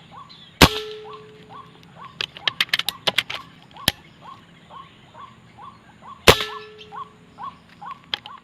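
Two shots from a PCP air rifle, one shortly after the start and one about six seconds in, each a sharp crack followed by a brief ringing tone, with a quick run of clicks between them. Under them a bird calls over and over, short down-hooked notes about two to three a second.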